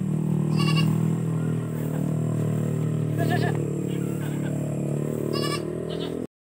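A young goat bleating three times in short, high, wavering calls over a steady low hum. The sound cuts off suddenly near the end.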